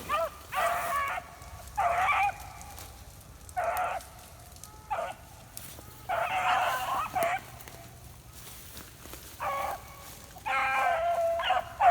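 A pack of beagles baying on a rabbit's trail, about seven drawn-out howls of half a second to a second each with short gaps between, the longest about halfway through and near the end. The hounds are running the rabbit toward the hunters.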